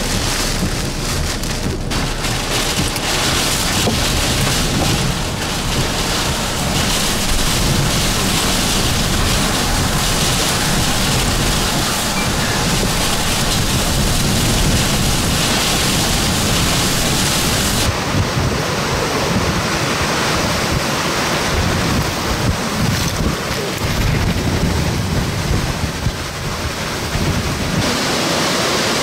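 Hurricane wind gusts and torrential rain, a loud continuous rush of wind and rain with wind buffeting the microphone. The sound changes abruptly a few times, as from one shot to the next.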